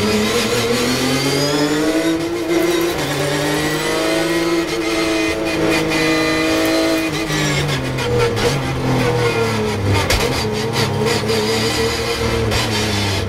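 Porsche 911 GT3 Cup race car's flat-six engine heard from inside the cockpit, revving up hard in second, shifting into third about two and a half seconds in and pulling to high revs. After about seven seconds the revs fall away under braking, with quick throttle blips on the downshifts to second and sharp clicks and knocks.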